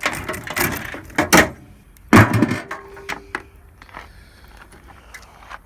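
Clicks, knocks and clatter of metal parts being handled while a microwave oven is taken apart. A louder clunk comes about two seconds in, then fainter ticks.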